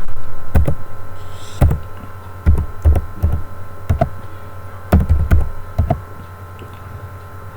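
Computer keyboard keys struck in separate, irregular strokes, stopping about six seconds in, over a steady electrical hum.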